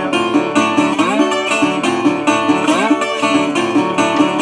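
National Delphi single-cone steel-body resonator guitar, fingerpicked and played with a slide in an instrumental break. A steady picked pattern runs throughout, with notes sliding up into pitch about every second and a half.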